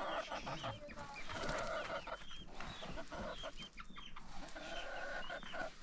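Several domestic chickens clucking and giving short calls, overlapping with one another.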